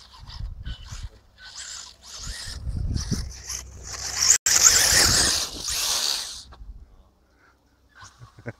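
Electric FTX Vantage 1:10 4x4 RC buggy driving hard across loose dirt, its brushless motor and tyres scrabbling and throwing dirt. It comes in short bursts at first, then a loud run of about four seconds that stops abruptly.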